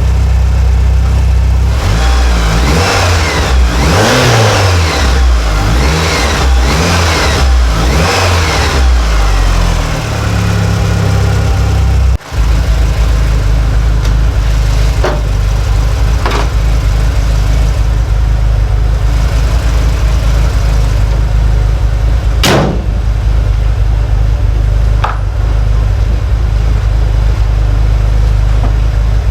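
Freshly overhauled Mitsubishi 4G63T turbocharged four-cylinder engine revved several times, its pitch rising and falling, then settling to a steady idle after about twelve seconds. A few short, sharp sounds come over the idle later on.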